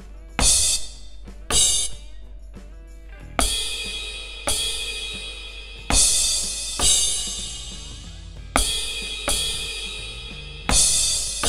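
Aroma TDX-25S electronic drum kit's sampled crash cymbal sounds, struck about nine times with a stick. The first two hits stop after about half a second, choked by grabbing the cymbal pad. The later crashes ring on until the next strike, showing the two sounds that each cymbal pad can play.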